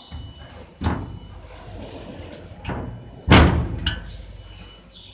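Sheet-metal cabinet door on the base of a desktop fiber laser marking machine being handled and shut: a few knocks, then one loud slam a little past three seconds in.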